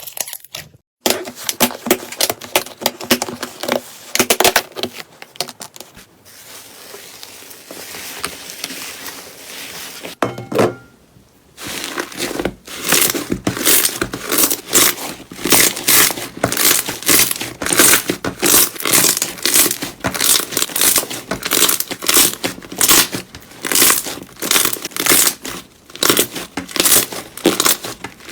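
Hands squeezing and pressing slime, making dense crackling and popping sounds, several pops a second. It softens for a few seconds midway, then comes back quicker and louder after a short break.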